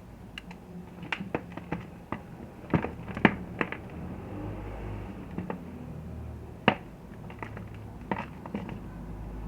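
Block of gym chalk crushed by hand, giving irregular crunchy snaps and crackles. The sharpest single snap comes a little past halfway, and a low steady hum runs underneath.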